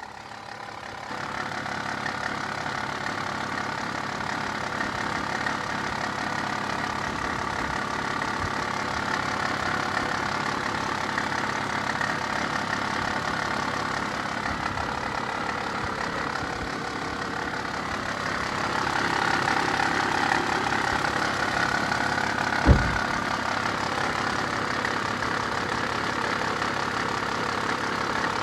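2014 Jeep Wrangler JK's engine idling with a steady, slightly wavering high-pitched whine, which the owner thinks is the drive belt but isn't sure. The whine grows louder for a few seconds about two-thirds of the way through, and there is one short knock soon after.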